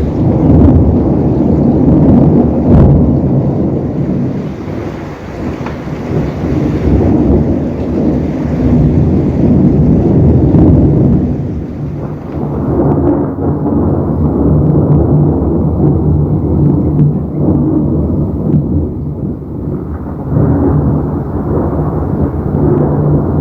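Thunder, a long low rolling rumble that swells and fades in several waves without stopping.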